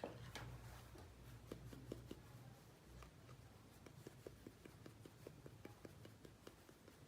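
Faint light taps and clicks of small toy kitchen pieces being handled and set in place. In the second half they become an even run of ticks, about five a second.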